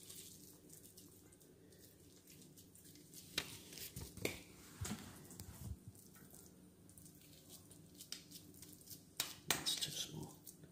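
Hands squishing and patting raw beef mince into a burger patty, faint, with scattered light clicks and taps that bunch up near the middle and again near the end.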